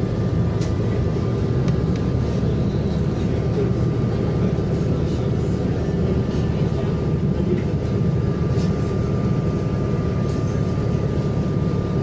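Steady low rumble of a city bus in motion, heard from inside the cabin: engine and road noise with a faint steady whine above it.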